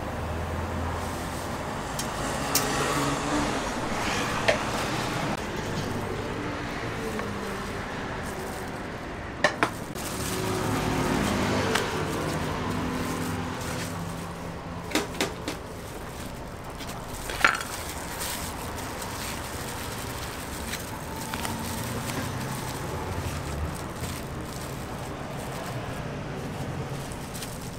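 Crepe-making work sounds: scattered clinks and knocks of utensils and dishes over a steady background hum.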